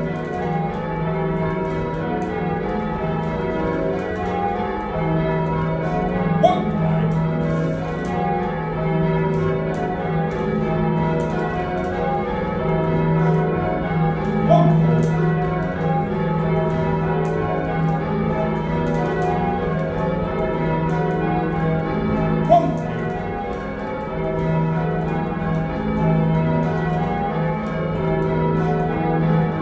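A heavy ring of six church bells, cast by John Taylor & Co in 1925 with a tenor of about 19 cwt in E-flat, being rung in changes, heard from the ringing chamber below the bells. The bells strike in an even, unbroken sequence, with a sharp click about every eight seconds.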